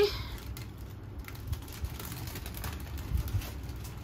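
Faint handling noise: a few light clicks and small knocks over a low, steady background rumble.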